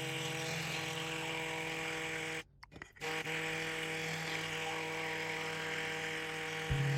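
Small electric motor running with a steady hum. It cuts out for about half a second midway, then runs again.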